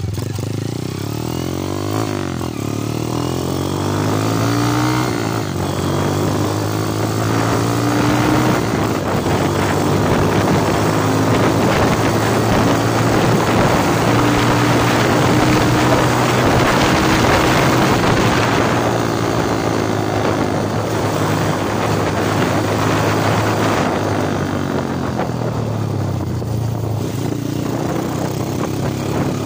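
Underbone motorcycle engine running while being ridden, its pitch rising and falling repeatedly as it speeds up and eases off. A rushing noise of wind over the microphone grows heaviest through the middle stretch.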